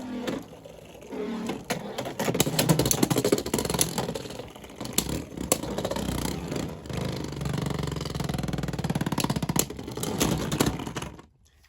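Two Beyblade X spinning tops whirring in a plastic stadium, with many sharp clacks as they collide. The sound cuts off shortly before the end as the battle finishes.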